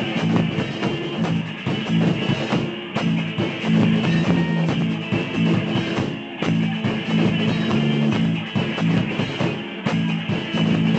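Rock band playing an instrumental break without vocals: strummed guitars and a driving drum kit.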